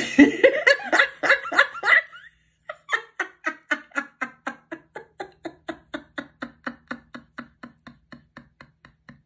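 A woman laughing heartily: a loud outburst for about two seconds, then a long run of even 'ha-ha' pulses, about four a second, that slowly fade away.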